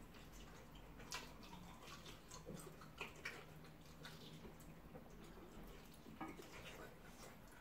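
Faint wet eating sounds of rice and tomato stew eaten by hand: chewing and lip smacking, with fingers squishing through the food. A few short, scattered clicks.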